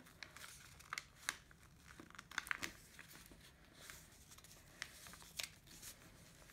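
Faint rustling and crinkling of a sheet of A4 paper as it is folded and its crease pressed flat by hand, with scattered soft crackles.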